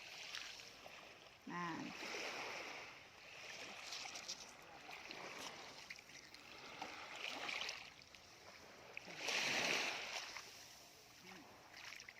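Small waves washing up the beach and draining back, the hiss swelling and fading every couple of seconds, loudest about three quarters of the way through.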